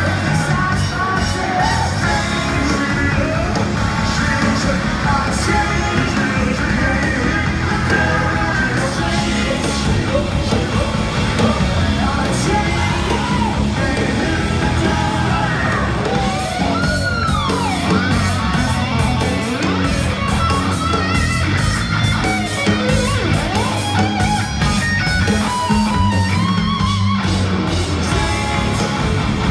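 Live rock band playing loud, with distorted electric guitar, bass and drums and a singer's voice, heard from within the crowd. About sixteen seconds in, a high pitch arches up and back down.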